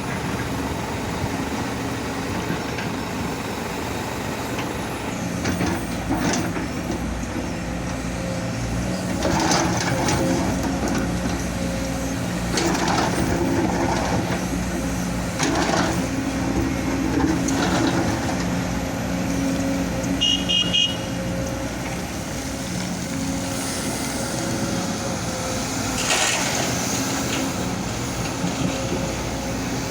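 Diesel engine of heavy earthmoving machinery running steadily, its note rising under load again and again, with short rushing bursts of hiss every few seconds. A brief rapid high beeping sounds about two thirds of the way through.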